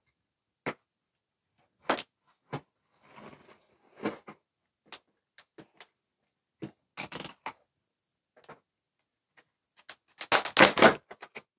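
Large cardboard carton being opened by hand: scattered taps, clicks and scrapes against the box top, a short cluster about halfway, and a louder burst of cardboard rustling and knocks near the end.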